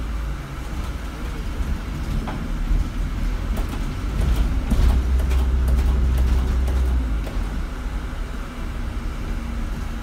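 Low chugging rumble of a double-decker bus heard from the upper deck, swelling to its loudest from about four to seven seconds in, then settling, with a few light rattles. The owner does not know what causes the chugging.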